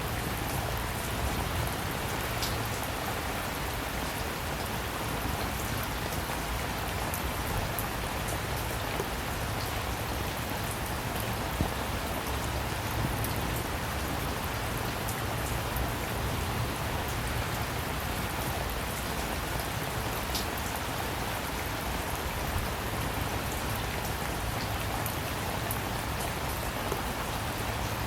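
Steady rain falling, an even hiss with scattered sharp drips of individual drops landing on a surface.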